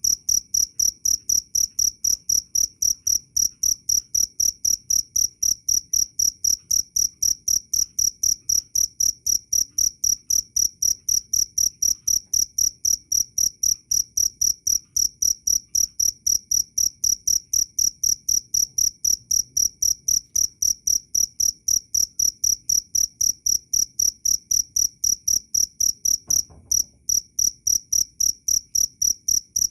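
Cricket chirping loudly in a steady, even rhythm of several high, pure-toned chirps a second, broken once for a moment about 26 seconds in.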